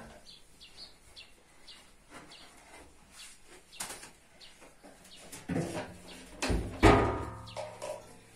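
Birds chirping in the background, then, about five and a half to seven seconds in, a few knocks and a brief metallic ring as a round metal lid is set down over the opening of a clay tandoor.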